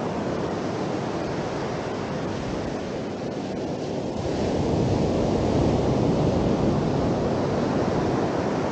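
Sea surf washing onto the beach in a steady rush of noise that swells a little about four seconds in.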